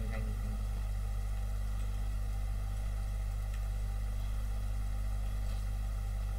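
Steady low electrical hum with a constant hiss, unchanging throughout.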